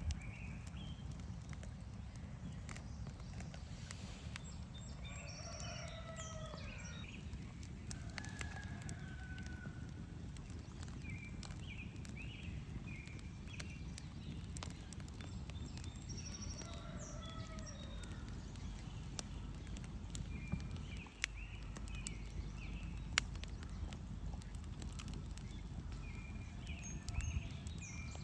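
Campfire crackling with sparse sharp pops over the steady low rush of a stream, while songbirds sing short warbling phrases at intervals.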